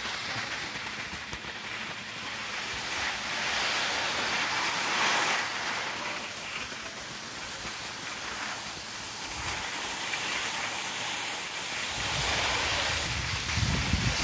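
Skis sliding over packed snow, a steady scraping hiss that swells and eases. Wind buffets the microphone with a low rumble near the end.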